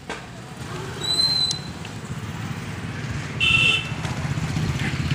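Street traffic: a steady low rumble with two short high-pitched tones, one about a second in and a brighter one about three and a half seconds in.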